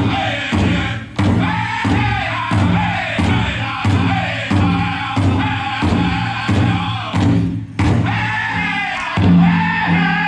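Powwow drum group singing a chicken dance song: a big powwow drum struck in a steady beat, about three strokes every two seconds, under high-pitched group singing, with a brief pause about three-quarters of the way through.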